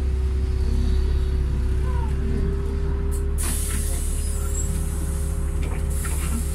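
Bus engine and road noise heard from inside the moving bus: a steady low drone with a steady whine over it. A hiss of air starts about three and a half seconds in and carries on to near the end.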